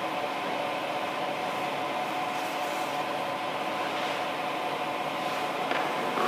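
Steady machine hum with a few constant tones over an even background noise.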